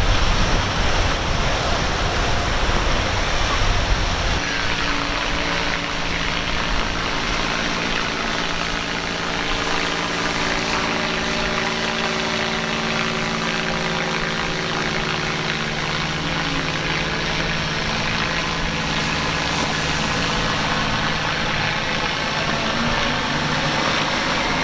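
Outboard motors of a center-console boat running at speed through rough inlet chop, a steady engine drone over the rush of wind and breaking water. Heavy wind rumble in the first few seconds, then the engine hum comes through clearly.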